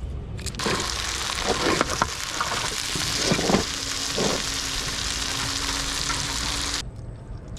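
Food frying in hot oil in a pan, a steady sizzle with a few knocks from a stirring utensil. The sizzle starts suddenly just after the start and cuts off suddenly near the end.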